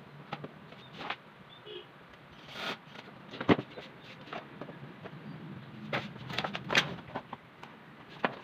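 Scattered clicks and knocks of an electric fan's metal wire guard and motor housing being handled on a workbench. The sharpest knock comes about three and a half seconds in, and a quick run of clicks comes around six to seven seconds.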